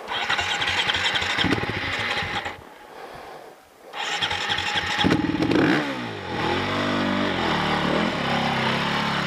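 Dirt bike engine being started on a steep climb: a stretch of engine noise, a lull near three seconds, then from about five seconds in the engine runs with its pitch rising and falling as the throttle is worked.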